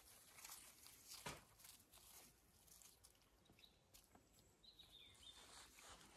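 Faint rustling and small clicks of puppies tugging and chewing a stick among garden plants and grass, with one sharper snap about a second in. A short bird chirp comes near the end.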